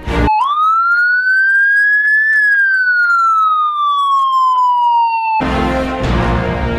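Siren sound effect: one long wail that rises for about two seconds, then falls slowly and cuts off abruptly about five seconds in.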